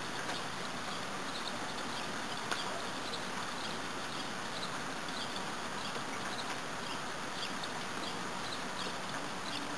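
Light rain falling steadily, an even patter, with faint high chirps now and then and a single small tick about two and a half seconds in.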